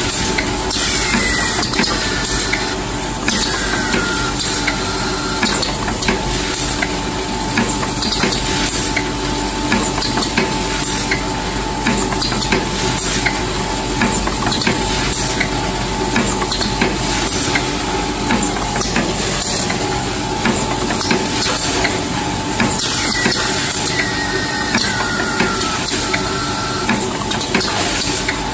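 Aluminium foil container press line running continuously: dense metallic clatter of the press and foil containers over a steady machine hum. Short falling squeaks sound twice, near the start and near the end.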